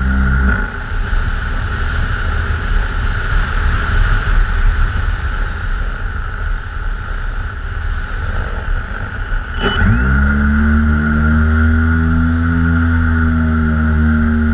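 Twin electric motors of a TwinStar model plane, heard from its onboard camera. Their whine falls away just after the start, leaving wind rush on the microphone for about nine seconds; then they throttle back up with a quick rising whine and hold a steady drone.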